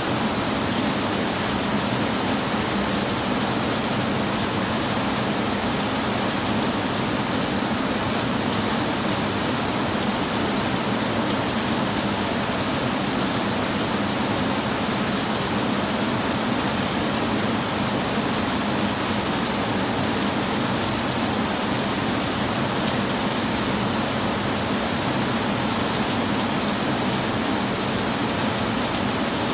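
Heavy rain on a tin roof, a dense steady hiss without breaks or claps of thunder.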